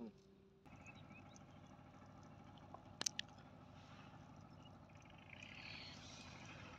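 Near silence: a faint, steady outdoor background hum, with one sharp click about three seconds in.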